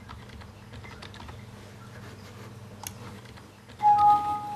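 Typing on a computer keyboard, scattered light key clicks over a low steady hum. About four seconds in comes a loud computer alert chime at two pitches, the system sound of a warning dialog popping up.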